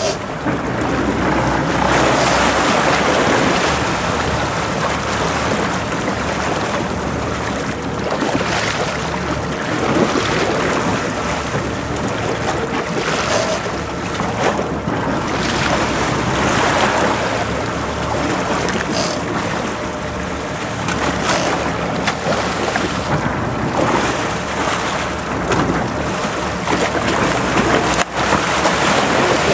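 Sea water rushing and churning against the side of a boat, with wind buffeting the microphone. Near the end a hooked bluefin tuna thrashes at the surface beside the hull, throwing up a heavy splash.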